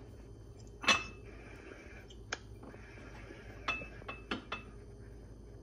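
Ceramic ramekins knocking and clinking as puff pastry dough is pressed into one: a sharper knock about a second in, then several lighter clinks with a short ring.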